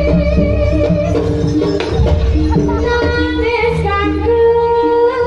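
Live Javanese traditional music accompanying a barong dance: a steady drum pulse under quick repeated pitched notes, with a long-held melodic line coming in about three seconds in.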